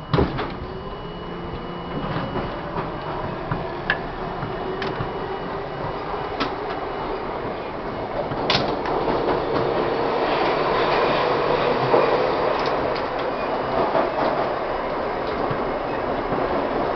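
R-32 subway car on the move: a whine rising in pitch over the first few seconds as it picks up speed, then a rumble of steel wheels on rail that builds toward the end, with scattered sharp clicks. A sharp thud right at the start.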